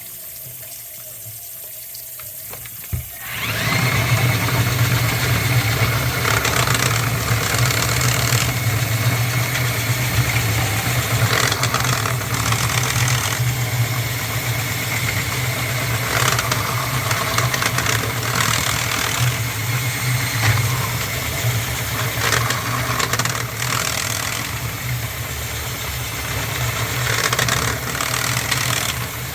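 Milwaukee drain snake starting up about three seconds in and running steadily in reverse, winding its cable back out of the sink drain line, with noisier stretches that come and go.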